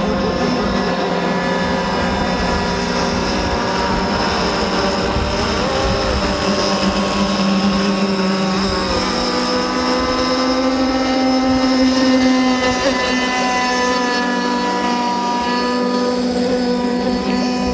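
CMB 26cc two-stroke petrol engine of an RC racing boat, running at speed with a steady high-pitched buzz. Its note wavers a few times, then steps up higher about ten seconds in.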